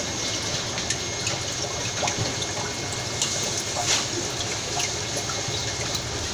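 Fish tank water bubbling and trickling from its aeration and filter, with small splashes and drips.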